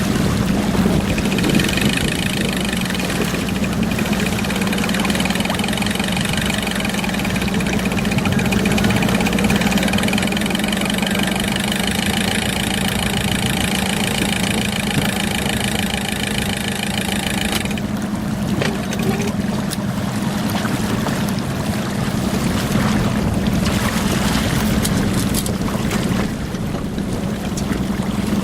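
Fishing boat's engine running steadily, with a higher mechanical whine over it that cuts off suddenly about two-thirds of the way through.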